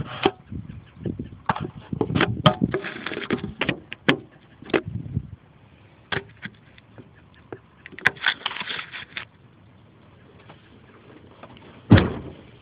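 Handling noise on the camera's microphone: irregular rustling, clicks and knocks, then a short rustle and one loud thump near the end.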